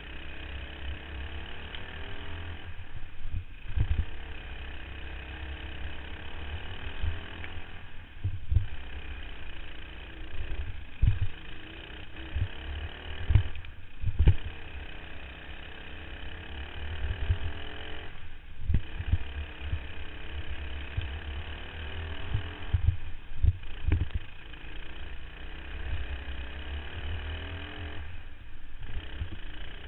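Racing kart engine heard from an onboard camera, its pitch climbing on the straights and dropping away briefly about every five seconds as the throttle is lifted for corners. Under it runs a heavy low rumble with scattered thumps from the kart's vibration and wind on the microphone.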